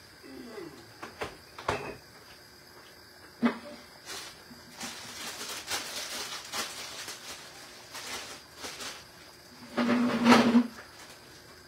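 Kitchen handling sounds: a few sharp knocks and clicks, then a stretch of rustling. A short, loud, low pitched tone sounds about ten seconds in.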